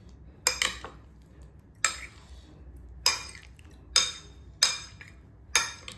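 A metal spoon clinking against a white bowl while mixing potato pieces in a sticky sauce: six sharp, ringing clinks about a second apart.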